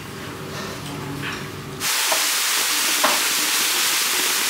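Faint table and dish sounds, then about two seconds in a sudden change to a loud, steady rushing hiss of running water.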